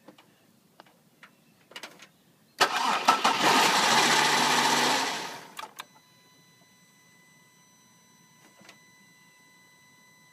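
Cadillac CTS engine, started by jumping the starter with a wire, bursts into life and runs for about three seconds, then fades out and dies: it won't stay running. A few light clicks come before it, and a faint steady high-pitched tone follows.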